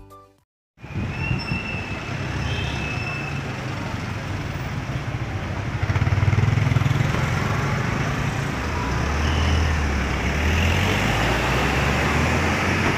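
After a moment of silence, steady city street traffic noise: a low rumble of vehicle engines and road noise, growing louder about six seconds in.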